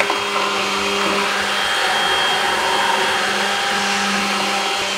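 Electric hand blender running steadily with its blade down in a jug of liquid, a constant motor hum with hiss, emulsifying a mixture of syrup, plant-based milk and coconut oil.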